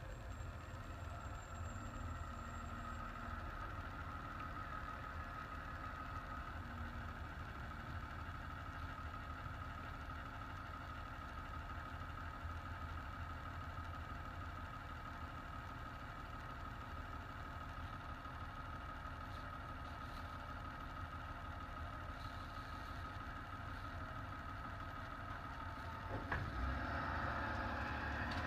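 Vehicle engine idling steadily: a low rumble with a steady high whine over it, growing a little louder near the end.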